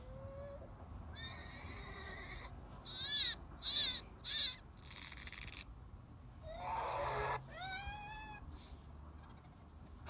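Recorded animal calls played back one after another through a tablet's speaker from an animal-sounds app, several different calls in turn. The loudest is a run of three short wavering cries near the middle.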